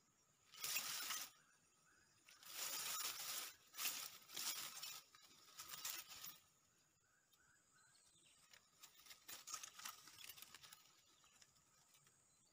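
Dry grass and stalks rustling and crackling in about five short bursts in the first six seconds, then softer crackling later, as the vegetation is handled. A faint steady insect drone runs underneath.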